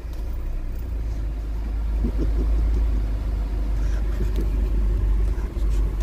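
Steady low rumble of a van's engine and tyres heard from inside the cab while it drives slowly.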